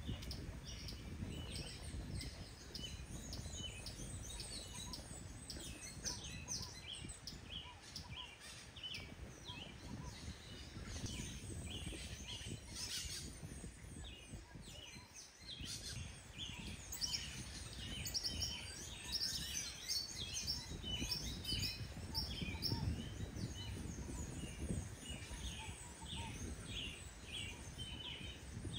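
Many short bird chirps and calls, quickly repeated all through, over a steady low outdoor rumble.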